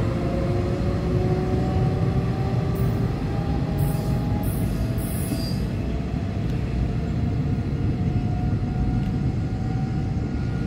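Taiwan Railway EMU500 electric multiple unit pulling away and accelerating, its motor whine rising slowly in pitch as it draws off, over a steady low rumble. A few short high hisses come midway.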